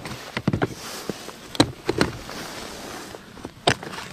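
Buckle latches on a Plano hard plastic case being unsnapped one after another: a handful of separate sharp plastic clicks and snaps, with handling rustle between them.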